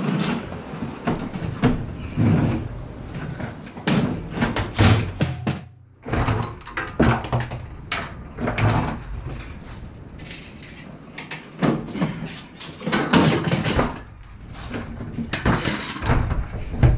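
Hand tools knocking and clattering as they are handled and packed into a tool case, a string of irregular clicks and knocks with a short lull about six seconds in.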